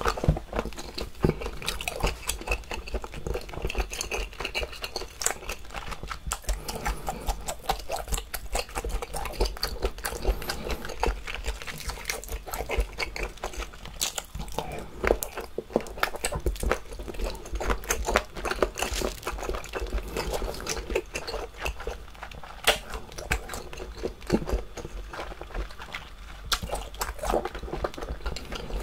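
Close-miked chewing and biting of a boiled giant octopus tentacle: a dense, continuous run of wet mouth clicks and smacks.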